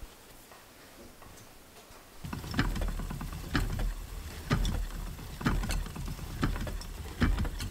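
Wooden treadle spinning wheel set going about two seconds in, then running with a low rumble and a regular knock about once a second as wool is spun onto the bobbin.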